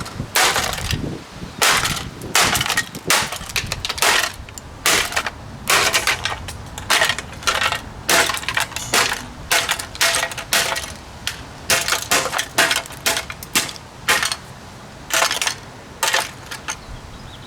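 Vintage Sanyo 16-inch table fan being smashed: a long run of hard blows, about one to two a second, some of them ringing briefly.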